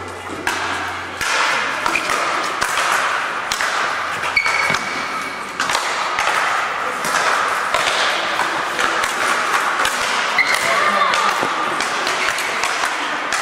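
Speed-ball rackets hitting tethered balls: many short sharp hits at an irregular pace from several courts at once, echoing in a large hall.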